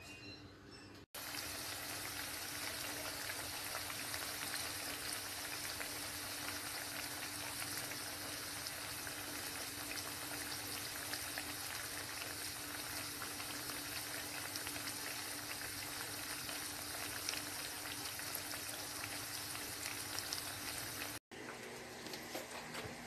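Battered squash nuggets frying in hot cooking oil in a pan: a steady, dense sizzle and crackle. It starts abruptly about a second in and stops abruptly near the end, giving way to a quieter stretch.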